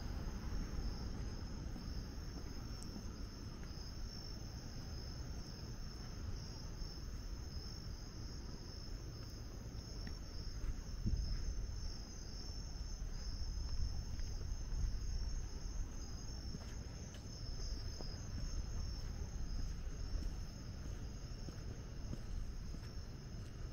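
Crickets chirping steadily in a continuous high trill, over a low rumble.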